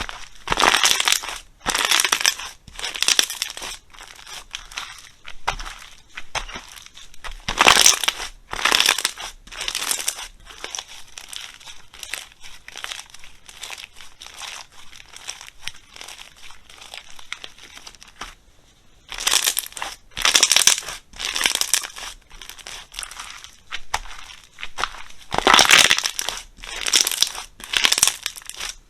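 Slime being squeezed and pressed, crinkling and crackling in a run of loud squishes about once a second. A quieter, finer crackling stretch comes in the middle, and there is a short pause about eighteen seconds in.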